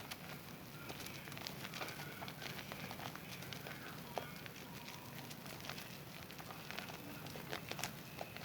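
Zest bar soap being lathered with wet hands: a steady wet squish with many small, irregular crackles and pops from the foam.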